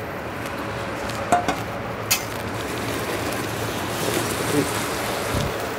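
Bean paste sizzling and bubbling in a pot of hot liquid as it is whisked in, a steady hiss growing slightly louder, with a couple of sharp clinks in the first two seconds.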